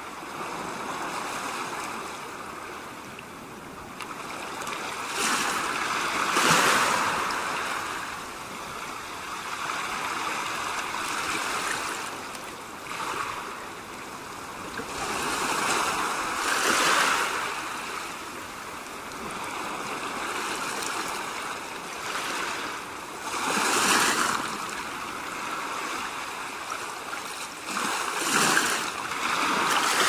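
Ocean waves washing onto a shore: a steady rush of water that swells up and falls back about every five to seven seconds, five times over.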